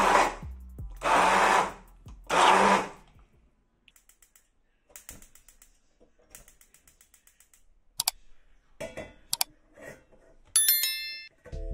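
Handheld stick blender run in three short pulses of about a second each, puréeing papaya in a cup. These are followed by scattered light clicks and knocks of a steel saucepan being handled on a gas hob, and a short bright chime near the end.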